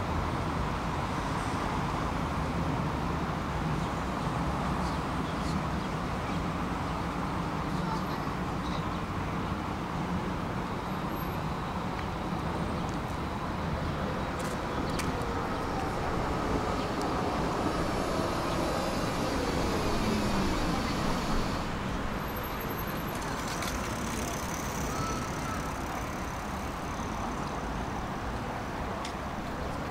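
Tram running along its track: a steady rumble and hiss of the car in motion, with a whine that falls steadily in pitch about halfway through.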